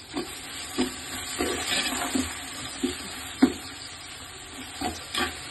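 Chopped onions sizzling in hot oil in a large metal pot, stirred with a spatula that scrapes and knocks against the pot at irregular intervals. The onions are at the early frying stage of a biryani base, being cooked toward golden brown.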